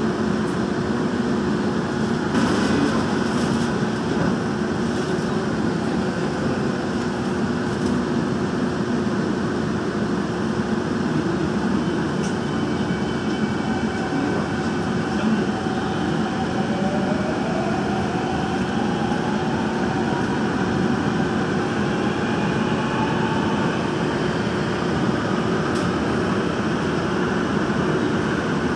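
Daejeon Metro Line 1 electric subway train running in a tunnel, a steady rumble of wheels on track heard from inside the car. A few clicks come about two to four seconds in, and a whine rises in pitch over several seconds past the middle.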